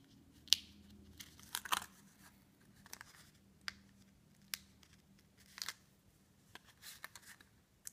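Paper release backing being picked and peeled off foam adhesive pieces by hand: small crackly snaps and ticks at irregular intervals, a sharper one about half a second in and a few together near two seconds.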